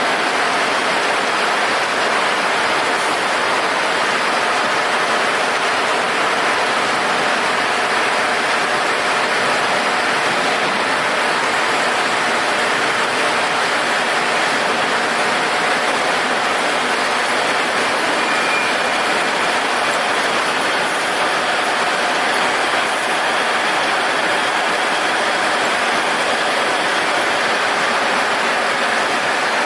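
Steady, unchanging noise of a metal-polishing machine working on generator parts, with a faint steady hum under it.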